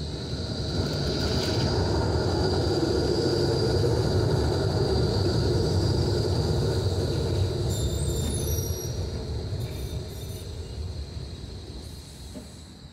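E-class low-floor tram passing close by on street rails: a rumble of steel wheels on track with a steady high whine. It grows louder over the first second or two, then fades away from about eight seconds in.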